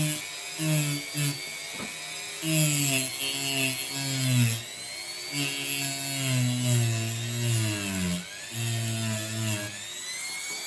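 Dremel rotary tool grinding down the sharp protruding end of a straight razor's pivot pin: a motor whine over a grinding hiss, its pitch dipping again and again as the tool is pressed onto the pin.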